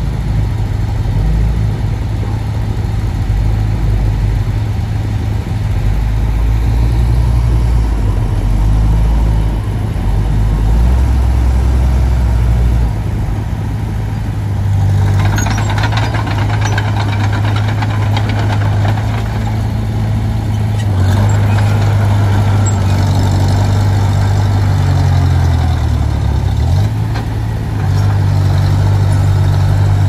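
Diesel engine of a Komatsu D20P crawler bulldozer running, its pitch stepping up and down as the engine speed changes. About halfway through, a harsher clattering noise joins it as the machine works.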